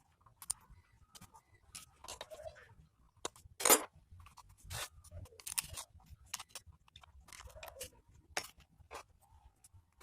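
Scattered clicks, taps and knocks of hand tools and metal motorcycle engine parts being handled during assembly. The loudest knock comes a little under four seconds in.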